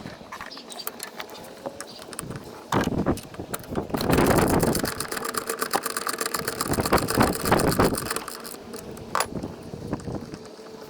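Pneumatic impact wrench (air gun) running for about four seconds from about four seconds in, working the bolts that hold the brake master cylinder to the brake booster. Sharp metal clicks and clinks of tools and parts come before and after it.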